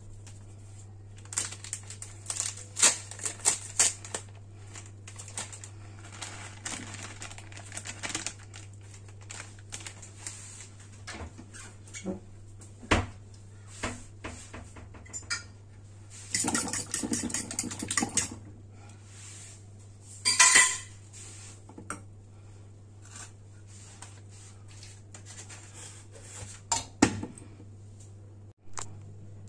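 A utensil clinking and scraping against a stainless steel mixing bowl as a liquid quiche filling with shredded cheese is stirred. There are scattered light clicks at first, then a stretch of fast scraping and clinking past the middle and one loud clatter soon after, over a steady low hum.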